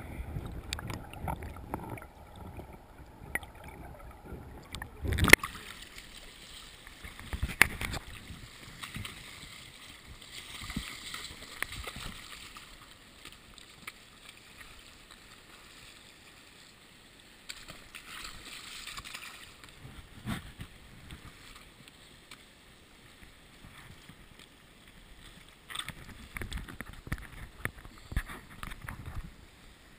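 River current gurgling and sloshing around a GoPro camera in its waterproof housing as it sits in and then just above the water, the sound muffled by the housing. There are sharp knocks or splashes about five and about eight seconds in.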